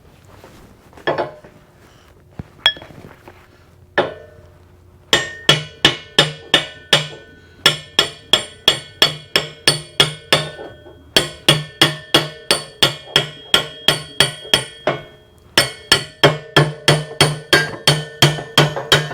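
Hammer blows on steel, each strike ringing. A few single blows come first, then three long runs of rapid strikes at about three a second, driving a tight-fitting steel bar through the coupler's bores.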